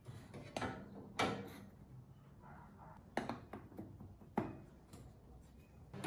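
Scattered sharp knocks and clunks of metal parts being handled on a steel workbench, as a kart slick wheel on its axle and bolt-on bearing plates are set into position on a mini bike frame.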